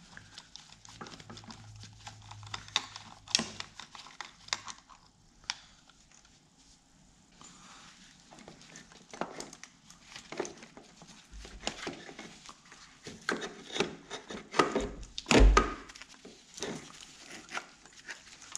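Irregular metallic clicks, knocks and scrapes as the starter motor of a John Deere 425 is worked loose and pulled out of the engine by hand, with a heavier thump late on.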